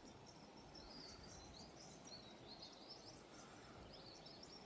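A faint chorus of small birds in bushland, many short high chirps and twittering calls overlapping without pause.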